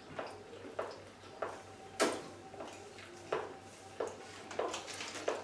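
Chewing and smacking mouthfuls of banana: a run of soft, short mouth smacks about every half second to second, the loudest about two seconds in.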